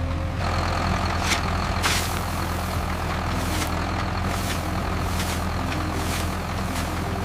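Tractor engine running steadily, pulling a plow. About half a second in, a rushing, hissing noise joins it, with short sharp hisses recurring roughly twice a second.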